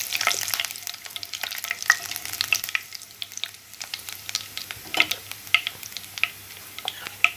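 Cumin seeds frying in hot oil in a kadhai: a soft sizzle with many sharp, irregular pops as the seeds crackle.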